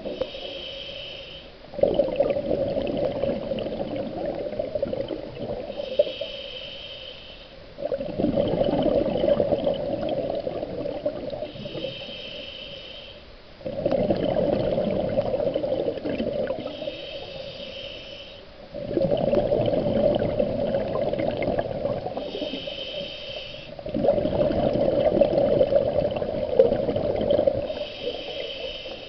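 Scuba diver breathing through a regulator underwater: a short, higher-pitched hiss on each inhale, then a longer, louder rush of exhaled bubbles, repeating steadily about every five to six seconds.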